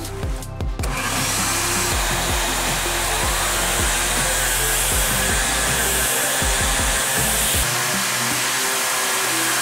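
DeWalt random orbital sander running on plywood: a steady whirring hiss that starts about a second in and holds, over background music with a low bass line.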